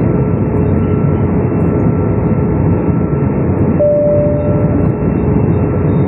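Steady roar of an airliner cabin in flight, with a single cabin chime ding about four seconds in, held for about a second.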